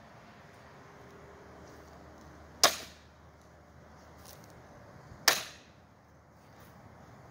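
A long blade chopping through bamboo stalks twice, about two and a half seconds apart, each cut a sharp crack that dies away quickly.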